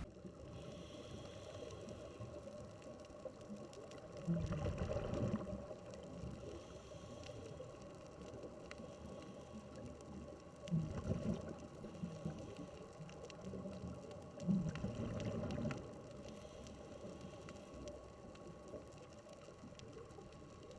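Underwater sound recorded by a camera among scuba divers: a steady muffled rumble of water with three louder gurgling surges, about four, eleven and fourteen seconds in.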